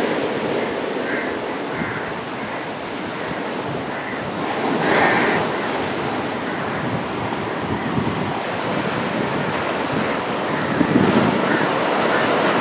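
Sea waves washing up the beach, with wind buffeting the microphone. The surf swells louder about five seconds in and again near the end.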